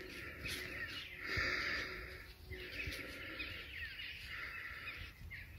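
A hand tool scraping and poking through loose, crumbly soil in about five short bouts, with small birds chirping in the background.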